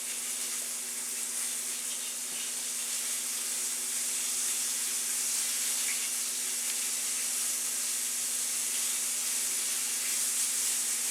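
Floured deer steak pieces frying in hot grease in a skillet: a steady sizzle that grows slightly louder.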